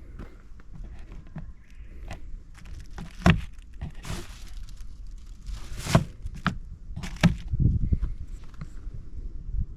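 A person walking: uneven footsteps with a few louder scuffing steps.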